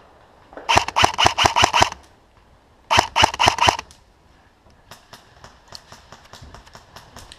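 Airsoft electric gun (AEG) firing two full-auto bursts of about a second each, a rapid run of clicking shots with a whirring gearbox tone. In the last few seconds come fainter scattered shots.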